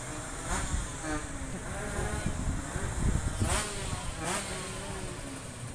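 Two-stroke sport motorcycle engines running and revving, over constant low rumble, with scattered voices of onlookers.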